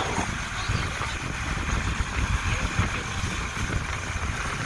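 Wind buffeting the microphone in an uneven low rumble, over the steady rush of water along the hull of a sailboat under way.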